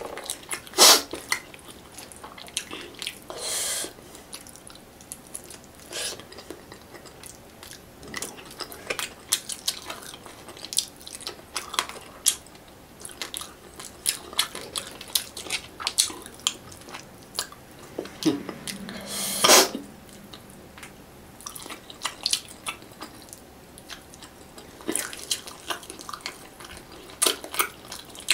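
Close-miked eating of tilapia in coconut milk by hand: chewing and lip smacks with many small clicks. Two louder noisy sounds of about half a second stand out, a few seconds in and about two-thirds of the way through.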